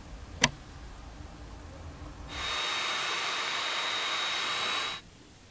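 A sharp click about half a second in, then a heat gun blowing hot air onto freshly painted brass spoon lures to dry the acrylic paint. It runs for about two and a half seconds as a steady hiss with a high whine, then cuts off suddenly.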